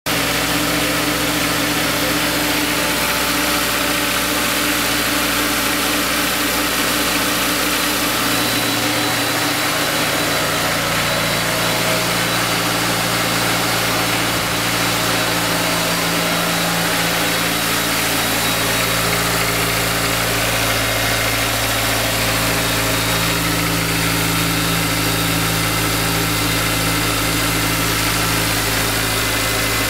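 Honda S2000's four-cylinder engine idling steadily from cold, with valvetrain noise present. The owner suspects a possible timing chain tensioner problem; the noise subsides almost completely once the engine is warm.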